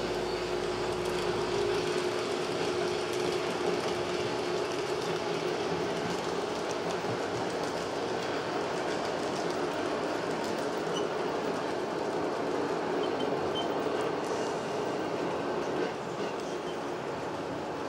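Model railway steam locomotive and its passenger coaches running along the track: a steady electric-motor hum with the noise of the wheels rolling on the rails. The hum weakens after the first few seconds as the locomotive moves away.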